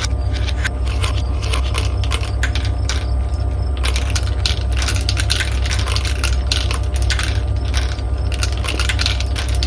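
Marbles rolling and clattering down a marble run track: a constant stream of irregular hard clicks and ticks, often in quick clusters, over a steady low rumble.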